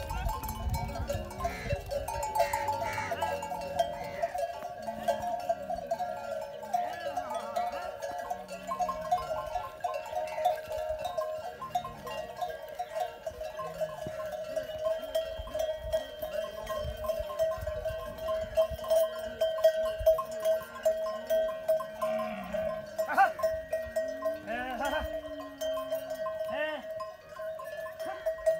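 Bells on a herd of walking dromedary camels ringing and clanking without a break, with low, bending calls from the camels now and then.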